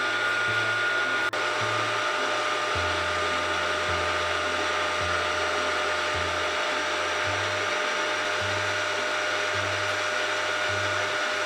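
Milling machine spindle running steadily at 1600 rpm for engraving, with a thin steady whine over the motor noise.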